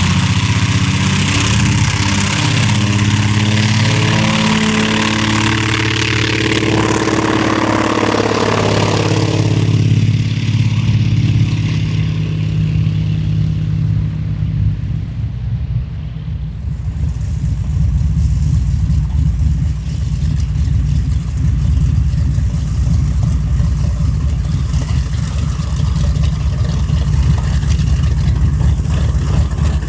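A Beech TC-45 Expeditor's twin radial engines passing by, their pitch falling and fading over the first several seconds. About halfway through, the steady, low, pulsing rumble of a TBM Avenger's big radial engine running takes over.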